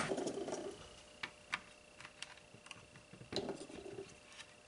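Light clicks, taps and rustling handling noise as a hard HDPE plastic helmet shell and small plastic spring clamps are moved about and set down on a wooden workbench, with a knock right at the start.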